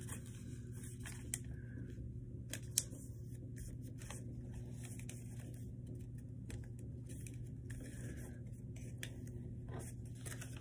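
Sheet of notebook paper being handled and creased while folding an origami plane: faint, irregular rustles and crinkles with a couple of sharper ticks in the first few seconds, over a steady low hum.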